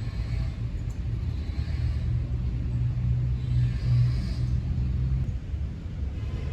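Steady low rumble of wind and road noise during a bike ride, swelling slightly around the middle.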